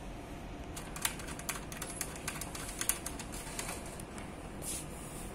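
Light, irregular clicks and taps of metal bolts being handled and threaded by hand into the mounting plate on the back of an elliptical trainer's display console, bunched in the middle of the stretch.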